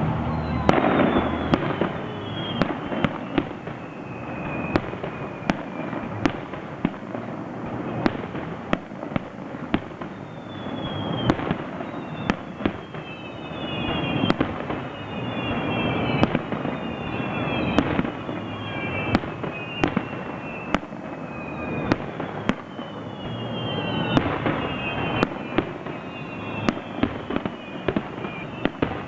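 Aerial fireworks going off in a dense run of sharp bangs and crackles over a continuous rumble, with many high whistles that fall in pitch.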